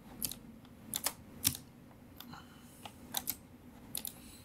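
Scattered clicks of a computer mouse and keyboard, about ten in all, some coming in quick pairs.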